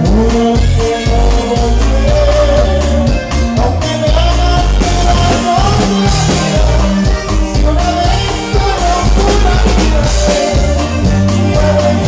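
Loud regional Mexican dance music from a live band: singing over bass and a steady drum beat.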